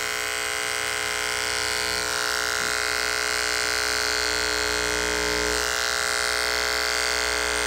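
Electric hair clipper (UltraEdge) running steadily with a continuous buzz as it shaves fur down to the skin.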